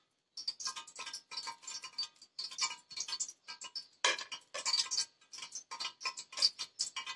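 Background music of quick, short ringing notes, several a second, with the strongest burst about four seconds in.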